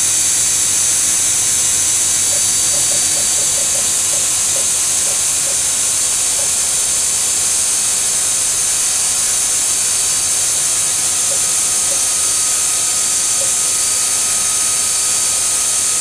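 Steady, loud, high-pitched hiss from a DIY mini CNC router's spindle running, with a few faint short tones in the first half as the cutter is lowered toward the workpiece.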